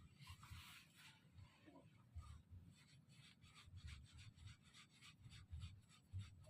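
Near silence with faint, quick ticking and light rubbing.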